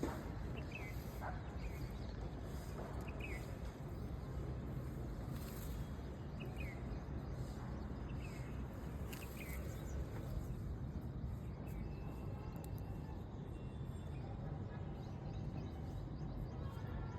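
Outdoor garden ambience: a steady low-pitched rumble with a few short bird chirps scattered through the first ten seconds.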